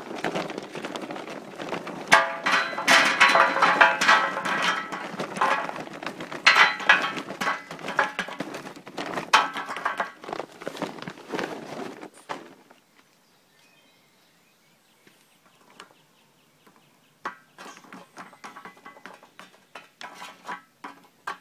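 Charcoal briquettes poured from a paper bag into a steel Slow 'N Sear charcoal basket in a Weber kettle grill: a dense clattering rattle for about twelve seconds. After a pause, lighter clinks come near the end as the briquettes are pushed into place with metal tongs.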